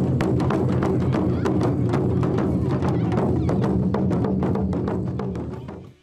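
Live Japanese festival parade music: a large hand-beaten drum and other percussion struck fast and dense over a deep drum rumble. It fades out near the end.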